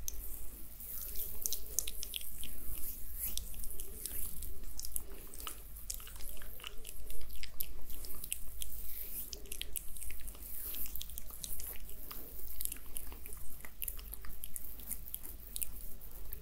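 Oily fingers and palms rubbing and pressing together close to the microphone: a continuous run of small wet, sticky clicks and crackles.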